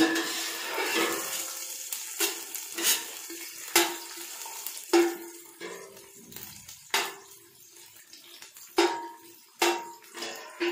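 Steel ladle stirring sliced onions frying in oil in a stainless steel pot, knocking and scraping against the pot about ten times, each knock ringing briefly, over the hiss of the onions sizzling.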